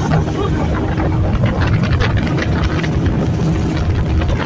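Speedboat engine running steadily at speed, with the rush of water past the hull.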